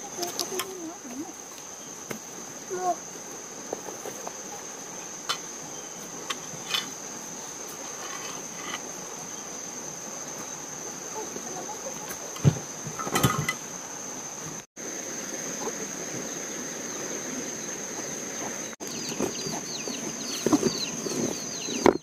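Insects chirring in a steady high-pitched drone, with scattered knocks and rustles. Near the end, short rapid chirps join in.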